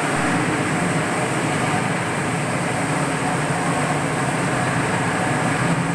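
Electric terrazzo floor grinding machine wet-grinding a terrazzo chip floor: a steady motor hum with grinding noise that does not change.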